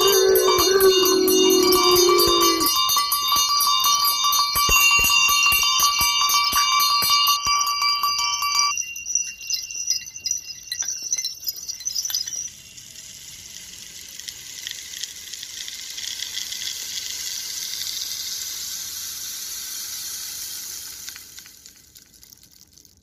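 Ritual bells and jingles ringing, with a wavering tone underneath that stops about three seconds in. The ringing stops after about nine seconds, leaving scattered clicks, then a soft hiss that fades out near the end.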